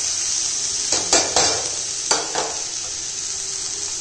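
Chopped baby bitter gourd sizzling after being tipped into hot oil in a steel pan. A steel ladle stirs it, scraping against the pan several times between about one and two and a half seconds in.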